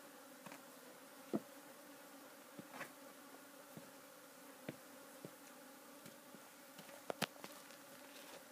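Faint, steady buzzing of insects, bees or flies, with scattered short clicks and taps, the loudest about a second in and near the end.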